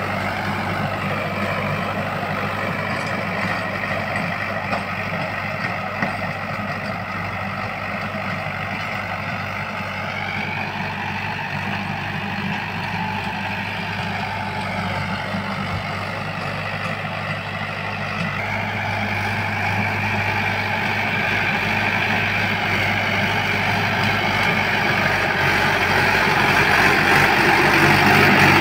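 Swaraj tractor's diesel engine running steadily under load, driving a rotavator that is tilling the soil, with a higher whine that rises and falls about halfway through. It grows louder near the end as the tractor comes close.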